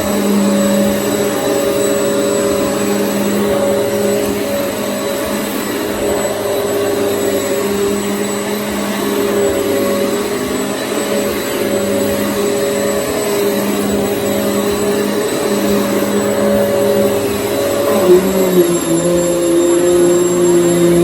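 Hoover EliteSwivel bagless upright vacuum cleaner running steadily as it is pushed over the floor. About eighteen seconds in, its motor note drops a little in pitch and there are a few sharp knocks.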